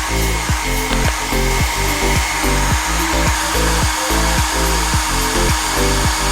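Hair dryer with a brushless (BLDC) motor running steadily: an even rush of air with a steady high whine. Background music with a bass line plays underneath.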